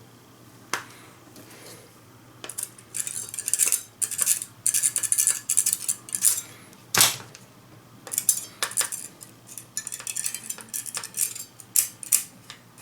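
A small file scraping rust off the battery contacts of a TV remote, in quick, irregular runs of strokes, with a sharp tap about halfway through. The rust comes from leaked batteries and is what keeps current from flowing to the remote.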